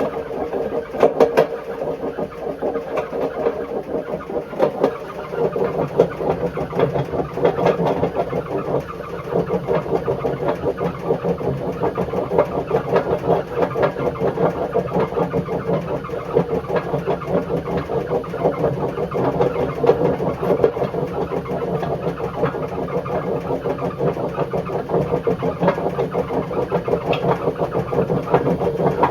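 Bush WMDF612 washing machine running with badly worn drum bearings. It makes a loud, steady rough grinding, threaded with rapid irregular knocking.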